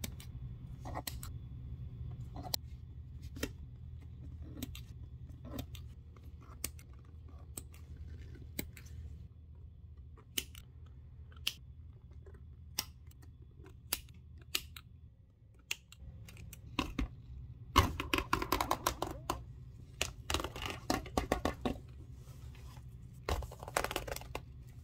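Small scissors snipping through the old thread stitching on worn vachetta leather trim, one crisp snip about every second. Later come three stretches of dense crackling and rustling as the leather and cut threads are worked by hand.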